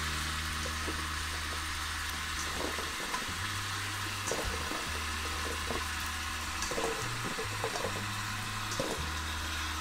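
Beef tails sizzling in the oil of an Afghan kazan, a steady hiss, as sliced peppers, onion and tomato are dropped in on top by hand, with a few faint taps as pieces land.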